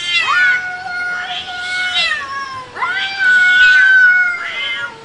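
Two cats facing off and yowling at each other: long, drawn-out, wavering cries, about four in a row with short breaks between them, the warning calls of a cat standoff.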